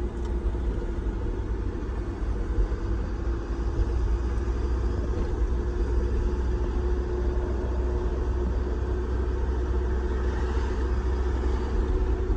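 Road noise inside a car's cabin at highway speed: a steady low rumble of tyres and engine with a steady hum running through it.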